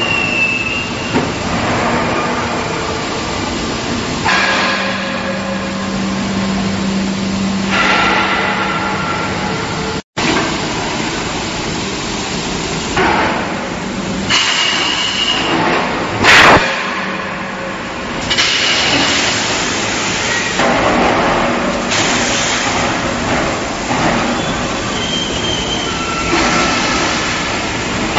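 Steel pipe mill machinery running: large steel pipes on roller conveyors, with a steady hum and thin whines under repeated rushes of rattling noise that swell and fade every few seconds. A loud sharp burst stands out about two-thirds of the way through, and the sound drops out for an instant about ten seconds in.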